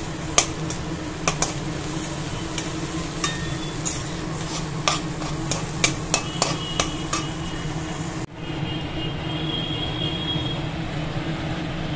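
Chopped water spinach (kalmi shak) frying in an aluminium kadai, a metal spatula stirring and scraping it with frequent clicks and knocks against the pan. After a cut about eight seconds in, the clicks stop and only a quieter steady hiss remains.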